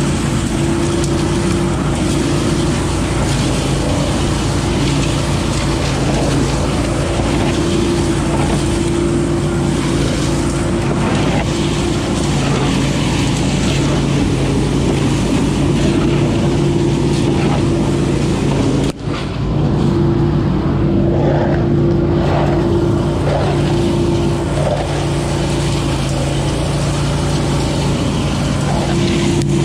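20 hp Billy Goat truck-loader leaf vacuum running steadily at full power, its engine and fan sucking dry leaves through the wide suction hose, with a constant rush of air and leaves over the engine's hum. The level dips for an instant about two-thirds of the way through.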